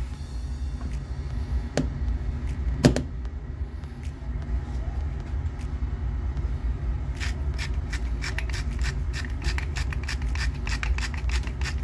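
Salt being added to a pot of rice in a run of quick, regular rasping strokes, several a second, from about seven seconds in. A steady low rumble runs underneath, with two knocks in the first three seconds.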